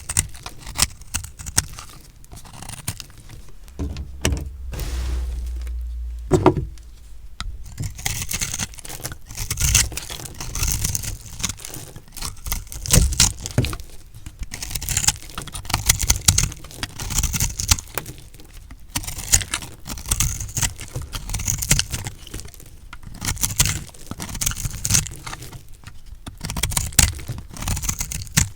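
Knife cutting through bars of recycled soap: a dense run of crisp crunches and crackles as the blade goes through the pressed soap. A brief low rumble from about four to six seconds in.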